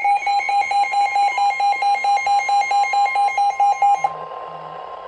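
Weather alert radio sounding a severe thunderstorm warning: a shrill electronic beeper beeping rapidly, about five beeps a second, over a steady alarm tone. The beeping stops about four seconds in, leaving the steady tone with radio hiss.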